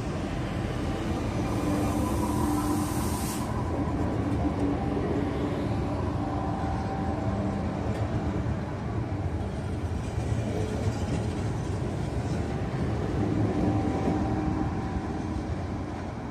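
GTT Minuetto multiple unit pulling out of the station alongside the platform: a steady rumble of wheels and running gear with a faint hum of traction equipment, a short hiss about two seconds in, and the sound growing fainter near the end as the rear of the train draws away.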